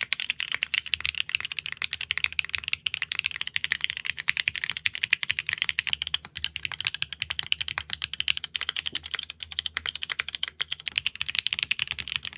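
Fast, continuous typing on a mechanical keyboard fitted with PBT reverse-dye-sub keycaps (KeyTok x Matrix Plato), a dense stream of sharp keystroke clicks.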